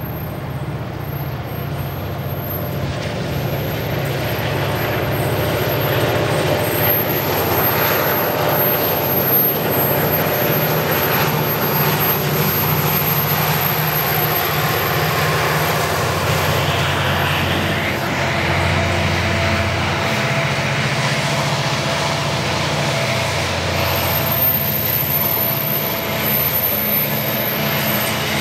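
EMD diesel-electric freight locomotives (an 81 class and a DL class) working hard hauling a loaded grain train up a grade, a steady engine drone that builds as they approach and pass. Near the end, loaded grain hopper wagons roll by.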